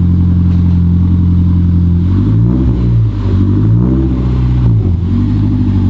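Honda S2000's F20 four-cylinder idling through a titanium J's Racing 70RR exhaust with a deep rumble. About two seconds in it is revved twice in quick blips, each rising and falling, then settles back to idle.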